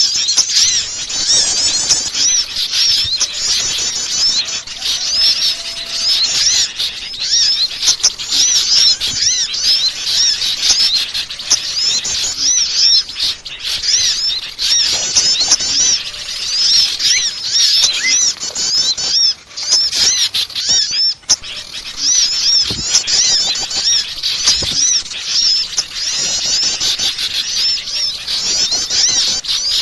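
Dense, noisy chorus of many small birds chirping and twittering over one another, high-pitched and continuous: a bird-lure (pikat) recording for calling small birds.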